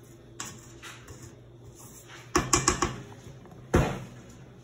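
A spatula scraping and tapping against a stainless steel stand-mixer bowl: a few soft scrapes, then a quick run of four or five sharp knocks, then one louder knock near the end. The mixer is not running.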